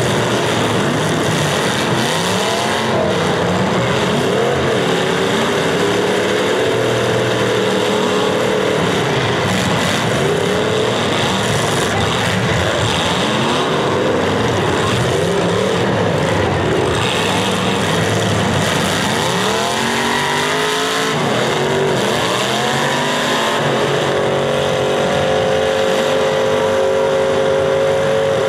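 Several demolition derby cars' engines revving hard at once, their pitches climbing and falling over one another as the cars ram and push each other on a dirt track.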